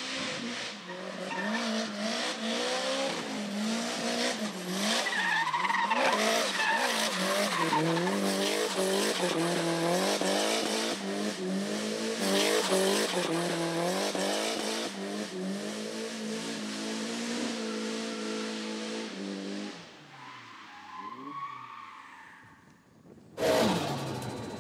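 Nissan Silvia S13 drift car, its tuned 2.2-litre engine of about 500 hp revving up and down hard with tyres squealing as it slides through the corners. About 20 seconds in the sound drops away and fades, then near the end it returns suddenly and louder from inside the car.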